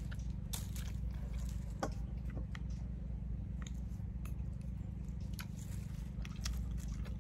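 Close-up chewing of a mouthful of balut (half-developed duck egg) with herbs: scattered wet mouth clicks and small crunches over a steady low hum.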